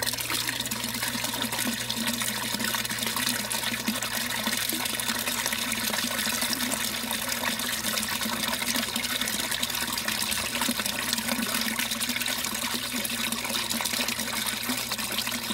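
A steady stream of water gushing from a PVC pipe outlet and splashing into a plastic sump tank: the flood-and-drain grow bed emptying through its siphon.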